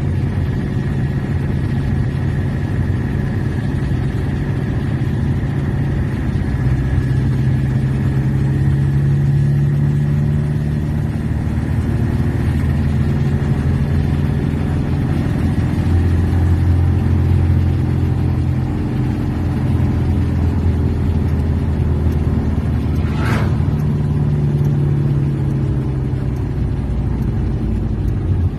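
Peugeot XD3 four-cylinder diesel engine of a Peugeot 404 pickup running steadily at road speed, heard from inside the cab with tyre and road noise. Its note shifts a little in pitch, and there is a single sharp click late on.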